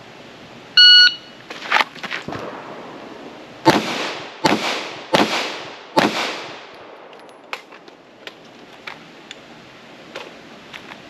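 A shot timer gives one short electronic beep, the start signal for a timed draw-and-fire drill. About three seconds later a 9mm Glock pistol fires four shots, roughly three-quarters of a second apart, each trailing off in an echo.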